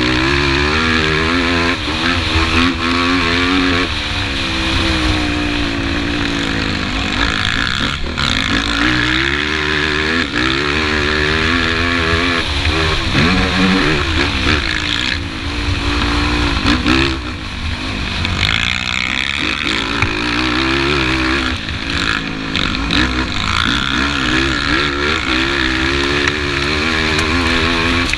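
Sport quad's engine heard from onboard at racing speed, revving up and falling back over and over as the throttle opens and closes through the track's turns and bumps, over a constant rush of wind and track noise.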